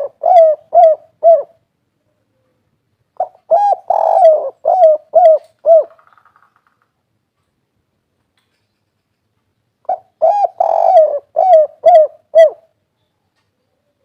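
Spotted dove (derkuku) giving its 'kuk 3' cooing call: three phrases of short, pitched coos a few seconds apart. The last phrase ends about two-thirds of the way through.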